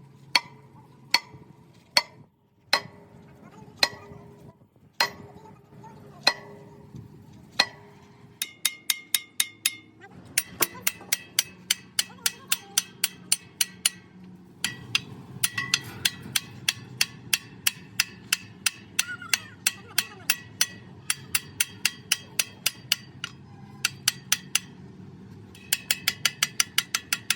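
A hammer striking metal, each blow ringing. At first the blows come singly, about a second apart. After about eight seconds they become quick runs of several blows a second, broken by short pauses.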